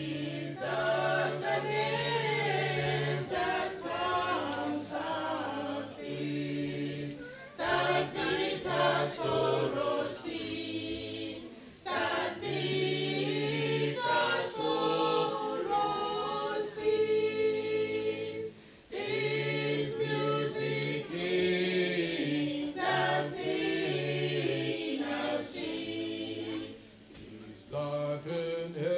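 A group of voices singing a hymn together in held, slow phrases, with short breaths between lines.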